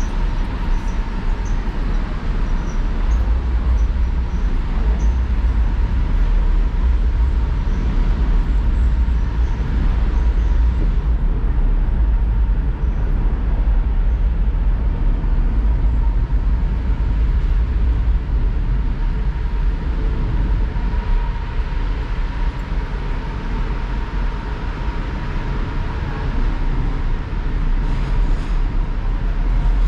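Wind buffeting the microphone, a loud steady low rumble, with a faint steady high tone running underneath.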